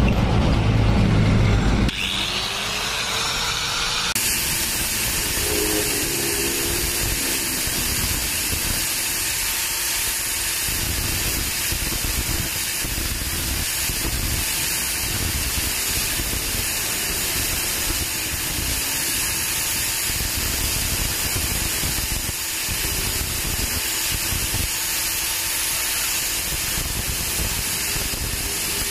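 A loud low rumble for about the first two seconds, then an electric angle grinder starts and spins up with a rising whine. It then runs steadily, grinding against the steel shank of a motorcycle valve-cover bolt held to its disc to thin it down.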